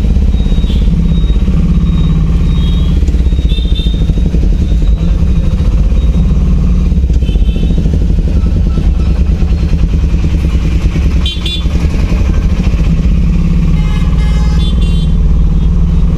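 Steady engine and road noise from a vehicle driving through town traffic, with a few short high-pitched beeps scattered through.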